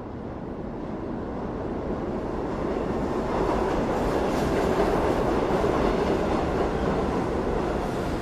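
New York subway train running on the rails, a dense rumble that grows louder over the first few seconds and then holds.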